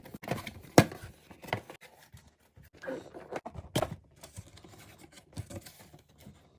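Cardboard box and packaging being rummaged through by hand: scrapes and rustles with a few sharp knocks, the loudest about a second in and another near four seconds.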